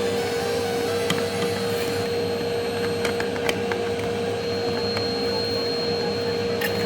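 Vacuum cleaner running steadily with a constant whine, used to clean a refrigerator, with a few short sharp clicks about a second in, around three seconds in and near the end.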